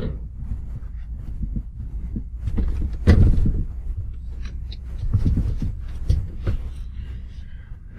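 Irregular knocks, bumps and scraping as the small TruckFridge TF-65 compressor fridge is handled and shifted against the wooden cabinet, with the heaviest thump about three seconds in and a cluster of bumps a couple of seconds later.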